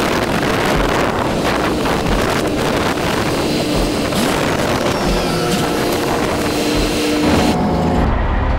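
Wind rushing over the microphone with road noise from a moving semi truck. About eight seconds in, it gives way to the truck's steady low engine hum.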